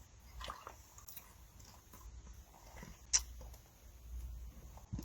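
Faint mouth noises, soft wet smacks and swallows, with one sharp click about three seconds in.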